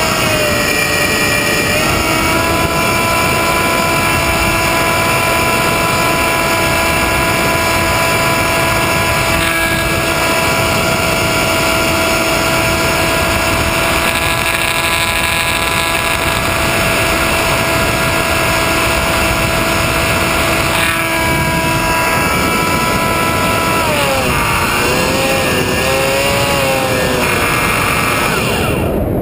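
RC model airplane's motor and propeller whining steadily in flight, with wind rushing over the onboard microphone. The pitch steps down twice near the start as the throttle is eased, holds steady, then drops and wavers up and down with throttle changes near the end before cutting off suddenly.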